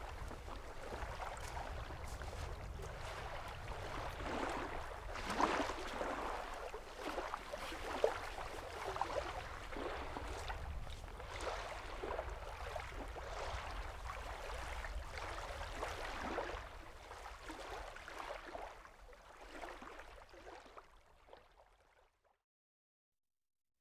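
Small waves lapping and washing onto a sandy shore, an irregular splashing wash over a low steady rumble. It fades out to silence near the end.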